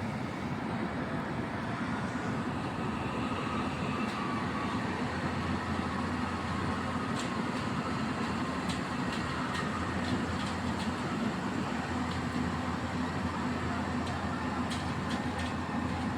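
Excavator's diesel engine running steadily, a continuous low drone, with a scattered series of light sharp clicks in the middle and again near the end.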